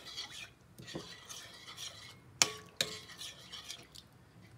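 Metal spoon stirring a liquid gelatin mixture in a mixing bowl, scraping around the bowl with a few sharp clinks against its side, the loudest about halfway through.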